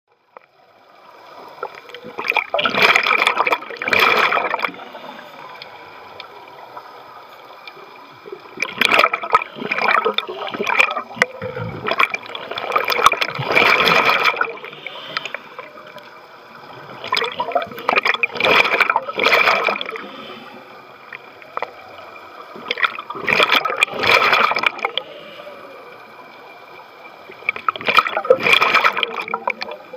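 Scuba regulator exhaust bubbling underwater as the diver breathes out, in six bursts about five seconds apart, with a quieter hiss of breathing between them.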